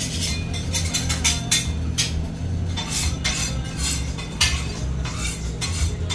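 Kitchen clatter at a commercial grill: repeated clinks and clanks of metal utensils and pans against steel, over a steady low rumble.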